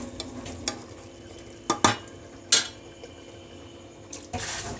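Metal spoon clinking and scraping against a pressure cooker pot while thick chickpea curry is stirred: a few sharp clinks in the first three seconds and a short scrape near the end.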